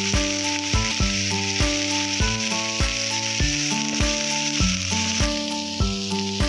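Fried rice sizzling in a hot pan as it is stirred, a steady hiss, under background music with a steady beat.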